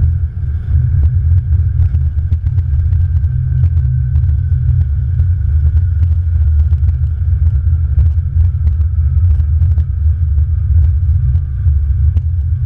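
Airbus A330-200 rolling down the runway after touchdown, heard from the cockpit: a steady low rumble from the wheels and airframe, with frequent light clicks and knocks, and a faint whine slowly falling in pitch.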